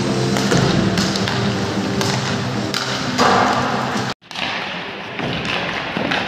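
Ice hockey warm-up: pucks and sticks knocking and thudding against the boards and ice, with music playing over the arena. About four seconds in the music cuts off and the knocks go on over a noisier rink hubbub.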